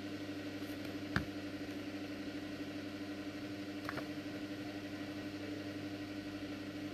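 Steady hum and hiss of a wall-mounted electric fan running. One sharp click about a second in, and a fainter one near four seconds.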